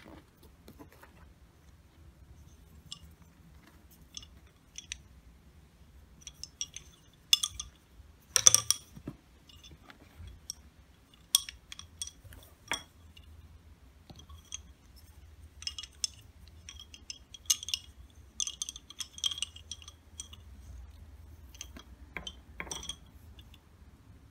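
Wooden lace bobbins and pins being handled, giving scattered light clicks and small clinks, with a few sharper ones about eight seconds in. A faint low hum runs underneath.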